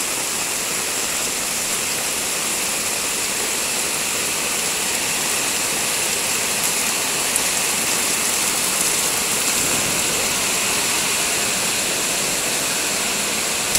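Heavy tropical rain pouring down steadily, a dense, even hiss that does not let up.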